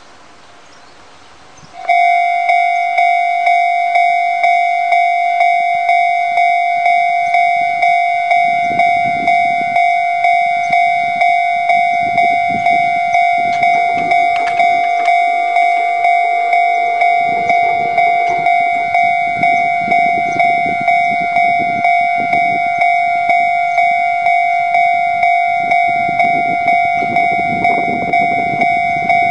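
Japanese level crossing warning bell starts about two seconds in and rings on in a steady, loud, evenly repeating ding, about one and a half strikes a second: the crossing is warning of an approaching train. A lower rumble comes and goes underneath.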